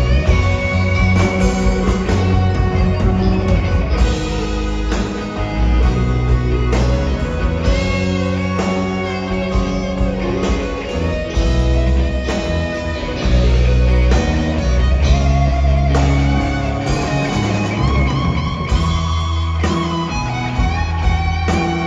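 Live rock band playing: an electric guitar lead line with held notes, some of them bending, over bass guitar and drums.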